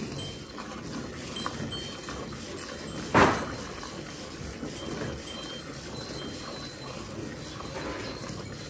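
Hand-milking a cow into a steel bucket: streams of milk squirting from the teats into milk already in the pail. A single short, loud knock about three seconds in.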